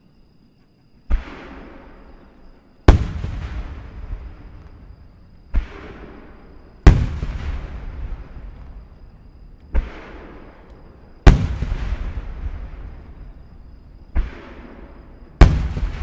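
Large aerial firework shells of a star mine bursting, about one second in, and then steadily through the rest: eight sharp bangs in pairs, each pair a lighter report followed a second or two later by a heavier one. Each heavier bang trails off in a long rumbling echo.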